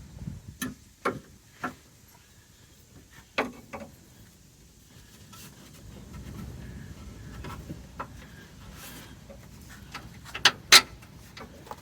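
Car parts and hand tools being handled: a scattering of sharp clicks and knocks at irregular intervals, with two louder knocks close together near the end.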